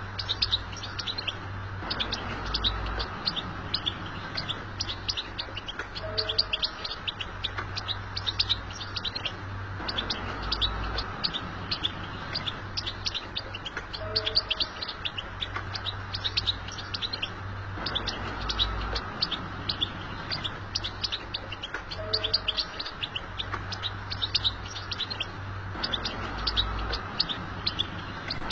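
European goldfinch singing a fast, continuous twittering song of rapid high chirps. A short low two-note call comes in about every eight seconds.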